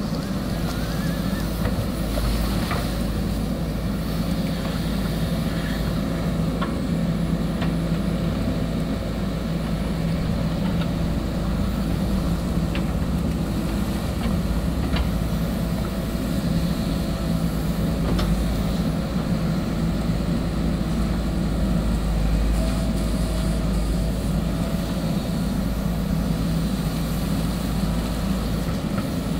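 JCB backhoe loader's diesel engine running steadily under load while the backhoe digs, with a few light knocks scattered through from the arm and bucket.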